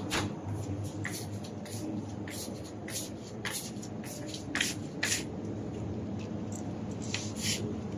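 Soft, irregular rustling and scuffing, about one or two brief sounds a second, over a steady low hum from the shop.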